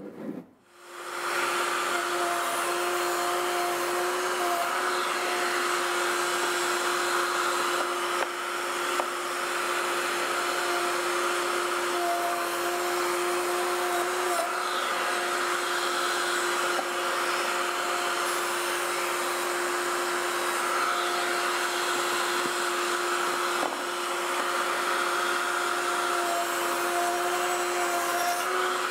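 Router mounted in a router table, spinning up about a second in and then running at speed with a steady high whine while square timber is fed past the bit to cut a groove.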